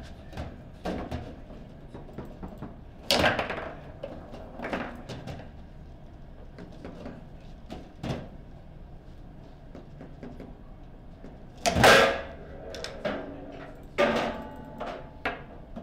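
Table football in play: the plastic men strike the ball and the ball knocks against the table walls, a run of sharp knocks at uneven intervals, with hard shots about 3, 12 and 14 seconds in.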